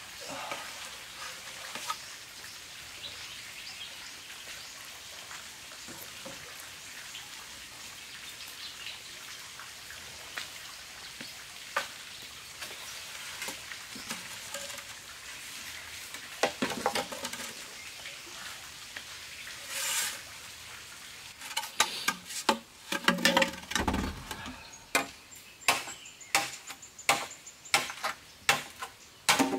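Forest background noise with occasional light knocks, then, from about two-thirds of the way in, a run of sharp strikes about two a second, with one heavier thump among them: a machete chopping a green bamboo pole.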